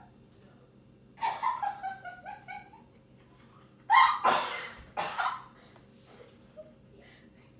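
A woman's stifled laughter behind her hand: a run of short giggles falling in pitch, then two sharp, noisy bursts of laughing breath about four and five seconds in.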